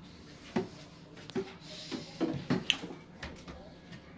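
Light knocks and clinks of refrigerator items, jars, bottles and packages, being picked up and set down, about half a dozen separate taps, bunched together in the second half.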